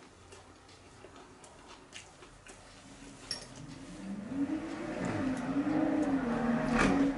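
Light clicks and scrapes of a metal fork against a plate, then a low droning hum that swells over about three seconds and drops off near the end.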